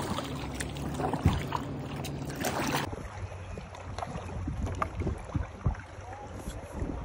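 Kayak paddle strokes splashing through the water, with wind rumbling on the microphone. About three seconds in the sound changes abruptly to a calmer stretch of lapping water and wind with a few small splashes.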